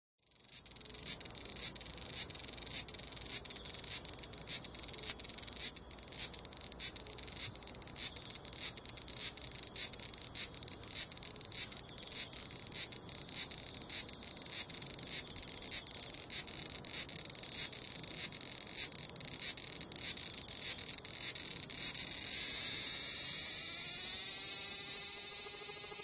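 Large brown cicada (aburazemi) singing: a run of short grating 'gi-gi-gi' pulses, about two a second, over a steady high hiss. About four seconds before the end it breaks into a continuous loud high buzz that distorts on the compact camera's microphone. The uploader links the pulsed song to the cicada moving about and the drawn-out buzz to it sitting still.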